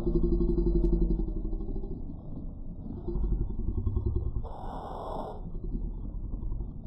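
Ballpark sound from a slow-motion replay, slowed and pitched down into a low, muffled drone with several held low tones. A short hissing burst comes about four and a half seconds in and lasts about a second.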